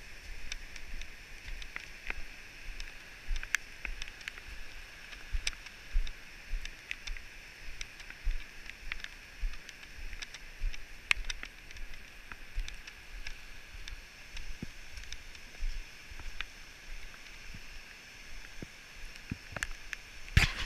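Footsteps of a hiker walking on a wet gravel forest trail, thudding through a body-worn action camera about one and a half times a second, with small crunches and clicks, over a steady hiss. A sharper knock comes near the end.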